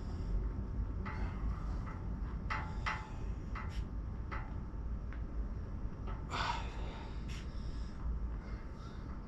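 Scattered light knocks and clicks of someone moving about and handling things, with a breathy gasp or exhale about six seconds in, over a steady low rumble.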